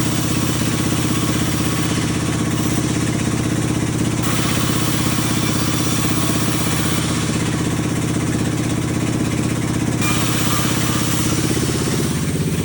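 Sawmill engine running steadily at a constant speed, with a hiss above it that shifts suddenly about four seconds in and again near ten seconds.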